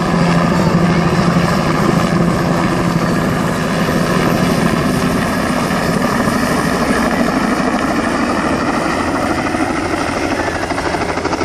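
Helicopter rotor chopping loudly and steadily, with the engine running, as the helicopter comes in to land.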